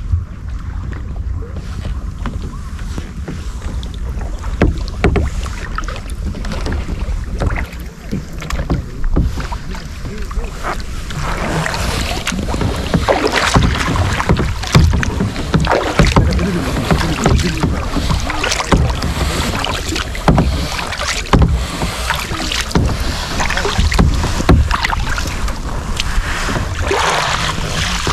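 Kayak paddle strokes dipping and splashing in calm sea water, with water rushing along the hull and wind on the microphone. The splashing grows louder about a third of the way in.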